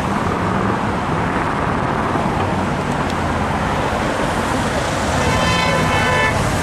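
Steady road traffic noise. About five seconds in, a steady pitched tone sounds over it for a second or so, like a vehicle horn.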